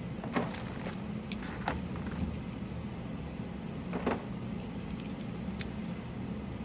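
Scattered small clicks and taps from mechanical keyboard parts being handled: a quick run in the first second, a stronger pair about four seconds in, and a few single clicks between, over a steady low hum.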